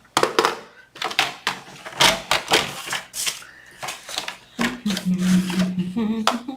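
Paper being handled on a work surface: a quick run of clicks, taps and rustles. A short hummed voice sound comes in near the end.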